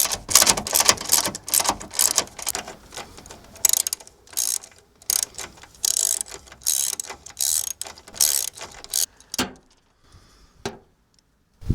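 Hand ratchet wrench clicking in quick runs of strokes as the top strut-mount nuts are run down and tightened, with a couple of single clicks near the end.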